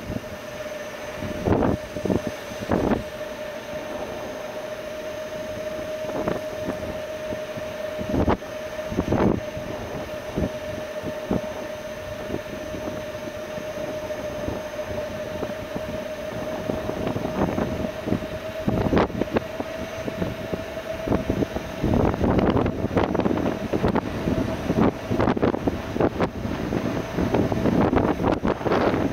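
Electric tourist road train in motion, heard on board: a steady hum, with scattered knocks and rattles from the carriage. The rattling becomes denser and louder over the last several seconds.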